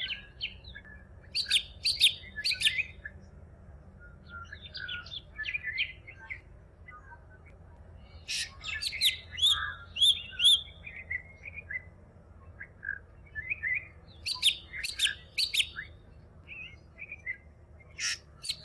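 Male Jerdon's leafbird giving its breeding call: loud phrases of sharp, quick high notes every few seconds, with softer twittering between them.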